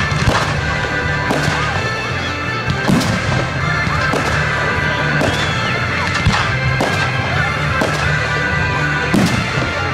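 Fireworks shells bursting, about nine sharp bangs roughly a second apart, over loud music with deep held bass notes.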